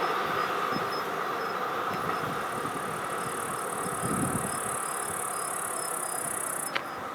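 A train rolling past, its steady rumble and rush slowly fading as it moves away. A high hiss stops suddenly near the end with a short click.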